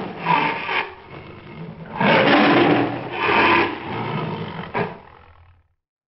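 Recorded tiger roaring: a series of rough roars in surges, the last one dying away about five seconds in.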